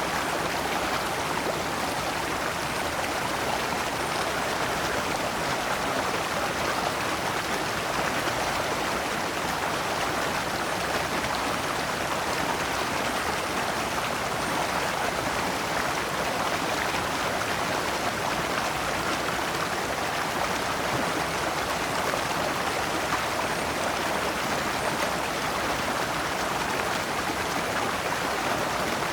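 Shallow stream running steadily over rocks in small cascades, a continuous even rush of water.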